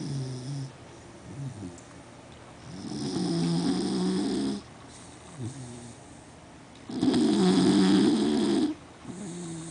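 A sleeping beagle snoring loudly: two long snores of about two seconds each, with softer breaths between them.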